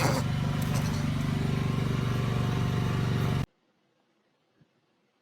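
Steady low outdoor rumble with a hum underneath, cutting off abruptly about three and a half seconds in and leaving near silence.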